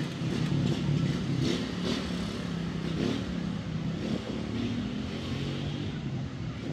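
A Porsche driving past, its engine a low steady note that is loudest in the first couple of seconds and eases off a little after.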